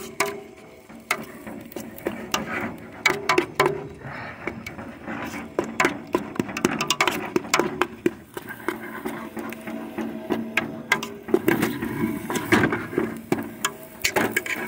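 A metal utensil stirring thick cooked spaghetti in a metal pot, clicking and scraping against the pot in quick irregular strokes, over a steady low hum.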